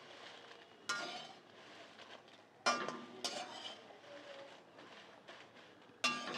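A steel spatula stirring whole dried red chillies in a steel kadai as they dry-roast, scraping and clinking against the pan about four times.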